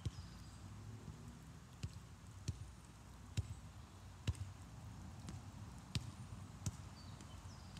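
Soccer ball being juggled with the feet: a sharp tap at each touch, about seven touches at uneven spacing, the loudest two near the middle.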